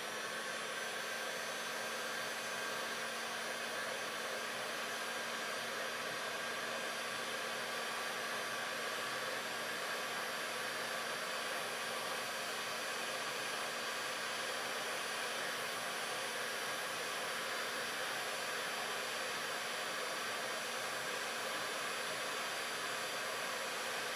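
Electric heat gun running steadily, its fan blowing a constant rush of air with a faint low hum and a thin whistle, heating a bolt to soften the Loctite thread-locker on it.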